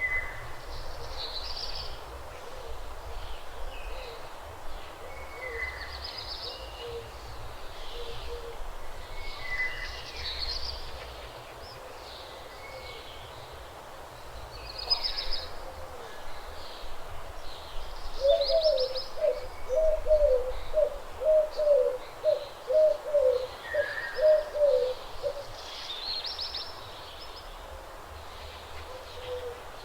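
Wild birds calling, with many short high chirps and whistles scattered throughout. Past the middle comes a loud series of about a dozen evenly spaced low notes from one bird, and a faint low rumble sits underneath.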